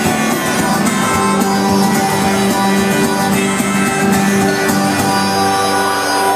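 Live acoustic guitar being strummed, with long held notes sounding over it.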